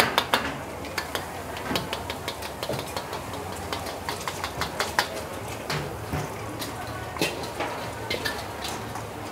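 Metal spatulas clanking and scraping against woks in quick irregular clatters during stir-frying, over the steady roar of gas wok burners.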